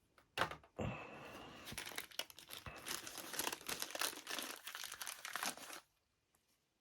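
Plastic bag crinkling as it is handled, a dense crackling that stops about a second before the end.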